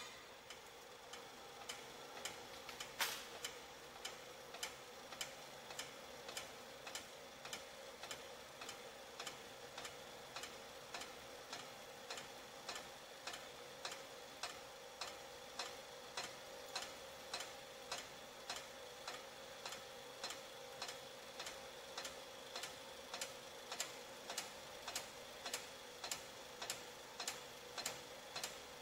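KOENG KBL-2200S on-car brake disc lathe switched on with a click and then running: a steady motor hum with a regular mechanical tick about every 0.6 seconds, and one sharper click about three seconds in.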